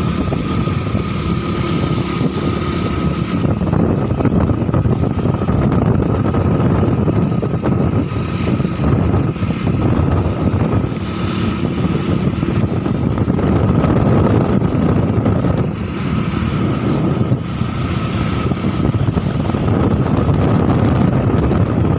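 A vehicle runs steadily with wind rushing over the microphone while it travels along a road.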